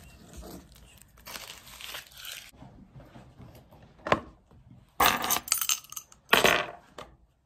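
Close rustling and handling noises as things are picked up off a table: a soft rustle at first, a short click about four seconds in, then two louder scraping rustles near the end.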